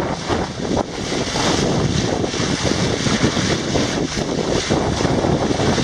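Strong wind buffeting the microphone in gusts, over the rush and slosh of water around a sailing dinghy in rough water.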